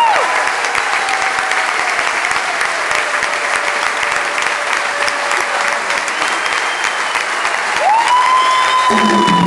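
Concert audience applauding steadily. A long held high tone comes in twice, once at the start and again near the end, and the band starts playing just before the end.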